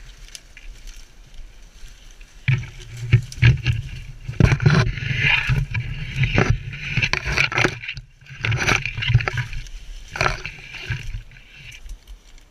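Branches, twigs and dry brush scraping, crackling and snapping against clothing, kit and a body-worn camera as someone pushes through dense woodland undergrowth, with irregular thumps from movement and footfalls. It eases off briefly about eight seconds in.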